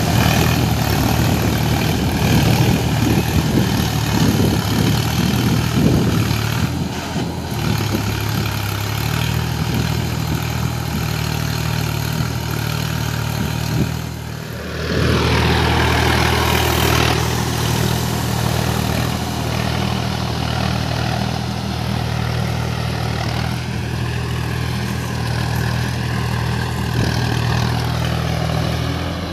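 Sonalika tractor's diesel engine running steadily under load, driving a Shaktiman rotavator through flooded paddy mud. The sound drops out briefly about halfway, and the engine note shifts a little after that.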